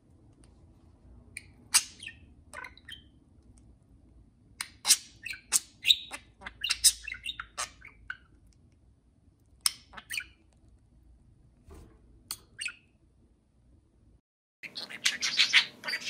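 Two budgerigars chirping and squawking in short, sharp scattered calls, busiest between about five and eight seconds in. Near the end the sound cuts out for a moment and a louder, denser run of sound begins.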